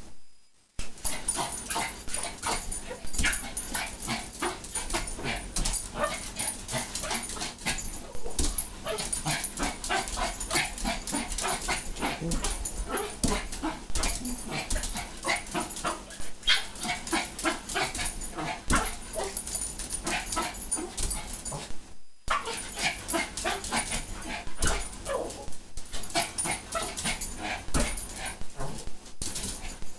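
Pomeranian yipping and barking rapidly over and over, with brief breaks just after the start and about 22 seconds in.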